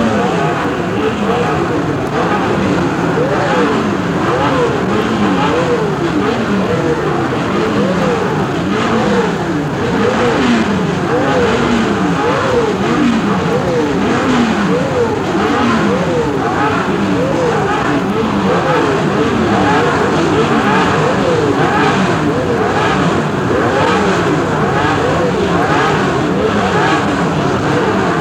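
A field of 1967 Formula One cars pulling away from the start grid, a mix of racing V8 and V12 engines revving hard through the gears. Many engines overlap, their pitch climbing and dropping again over and over as they shift up.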